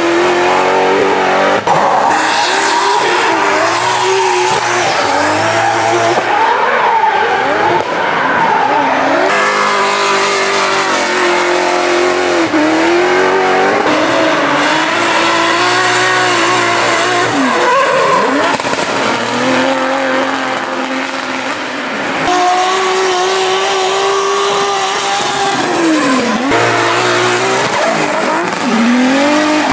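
Drift cars' engines revving up and down over and over as they slide, with tyres squealing and skidding.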